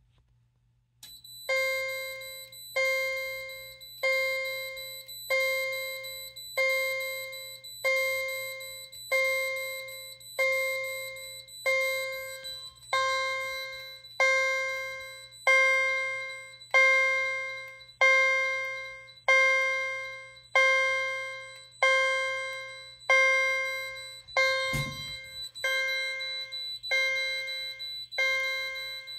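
Fire alarm chime on a test fire alarm system's notification circuit, sounding in alarm: one ringing strike about every 1.25 seconds, each dying away before the next, over a steady low hum. A single thump about 25 seconds in.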